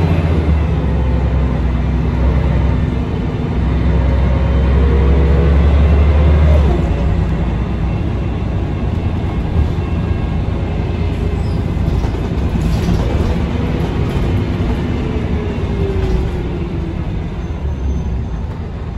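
Cabin sound aboard a moving Scania L113CRL bus: its rear-mounted 11-litre six-cylinder diesel running under way with a deep, steady drone, mixed with road and rattle noise. The deep drone drops away about seven seconds in.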